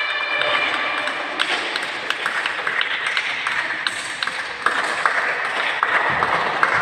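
Scattered sharp taps and claps over the steady murmur of spectators in a sports hall during a volleyball match.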